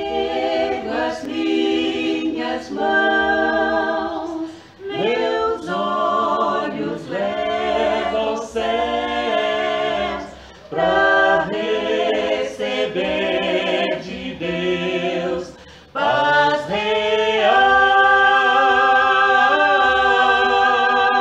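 Three voices, two women and a man, singing a Portuguese gospel hymn a cappella in harmony, in short phrases. They end on a long held chord in the last few seconds.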